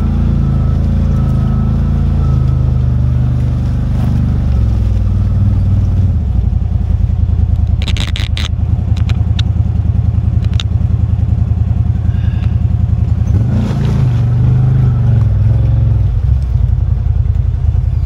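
CFMOTO ZForce 950 HO side-by-side's V-twin engine running steadily while driving on a trail. A quick cluster of sharp knocks comes about eight seconds in, with a few more after it, and the revs rise briefly around fourteen seconds.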